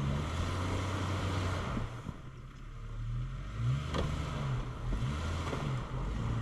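Old Jeep Cherokee's engine running, its pitch rising and falling a few times in the second half, over a steady rushing noise.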